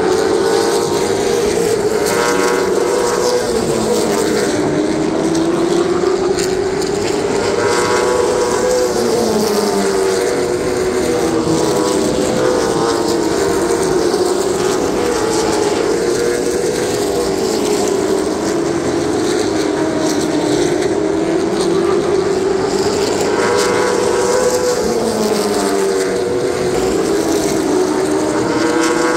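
Field of Late Model stock cars racing around a short oval, their V8 engines running flat out in a continuous drone whose pitch rises and falls in slow waves as the cars go down the straights and through the turns.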